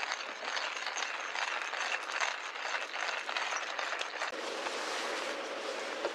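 Hand-cranked stainless-steel coffee grinder crushing beans: a dense, gritty crackle of many small cracks, turning smoother and steadier about four seconds in.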